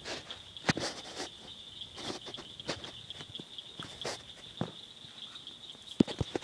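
Small clicks, taps and rustles of hands joining an airsoft electric gun's battery connector to its wiring, the sharpest click about six seconds in. A steady high-pitched whine runs underneath.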